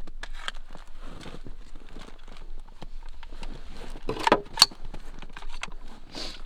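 A .22 LR AR-style rifle being cleared, with the action worked by hand to eject the chambered round. About four seconds in there are two sharp metallic clacks a fraction of a second apart, amid small crackles and rustles throughout.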